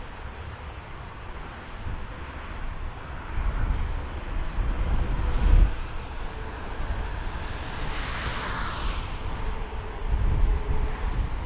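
Boeing 737-800's jet engines running at taxi power, a broad rushing whine that swells and fades about eight seconds in. Gusty wind buffets the microphone with low rumbles throughout.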